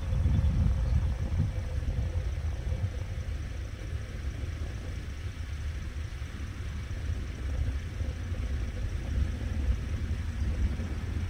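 Steady low rumble, a little stronger in the first couple of seconds; no calls from the birds can be heard.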